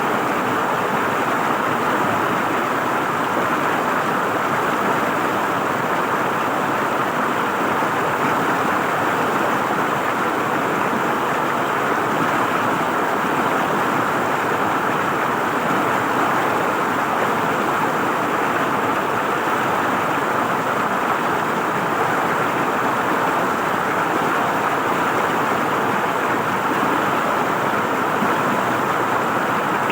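River water flowing and gurgling over rocks: a steady, even rushing.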